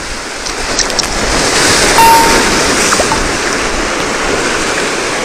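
Sea surf washing and breaking against concrete tetrapods, a steady loud rush that swells to its loudest about two seconds in.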